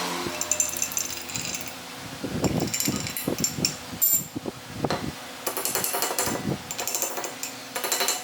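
Metal tools and parts clinking and knocking irregularly, with a faster run of metallic rattling clicks over the second half.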